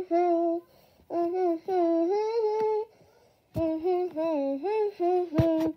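A child's voice singing a tune without words, in three phrases of held notes with short pauses between.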